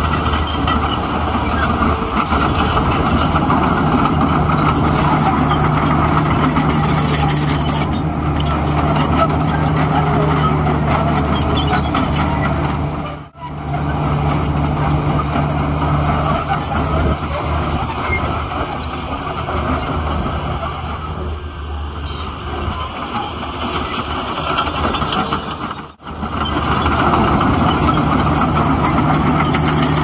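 Heavy diesel earthmoving machinery running, a steady low engine drone, broken off sharply twice: about halfway and near the end.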